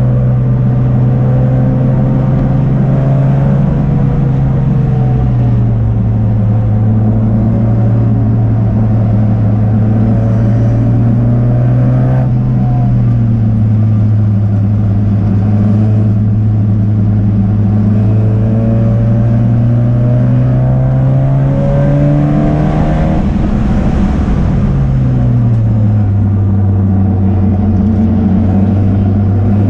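Race car engine running loud and steady at high revs. Its pitch steps down about four seconds in, then rises and falls again around twelve and twenty-three seconds in, as with gear changes and slowing for corners.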